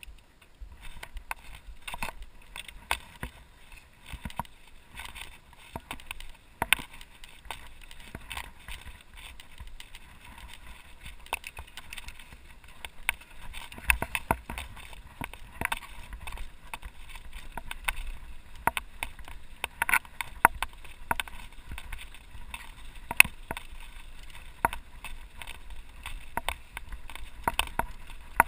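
Mountain bike riding over a rough, sandy dirt track, with frequent irregular rattles and knocks from the bike over the bumps. A steady low rumble of wind on the microphone runs underneath.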